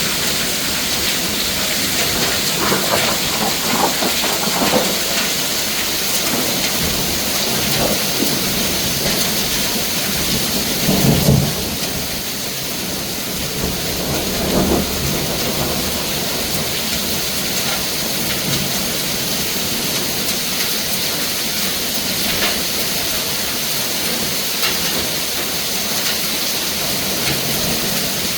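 Hail and heavy rain pelting down in a steady hiss, with scattered louder hits. Two stronger low thumps come about eleven and fifteen seconds in.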